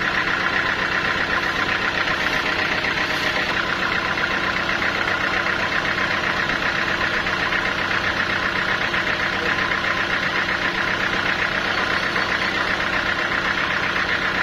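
Sawmill machinery running steadily: an even, fast-pulsing mechanical hum that does not change.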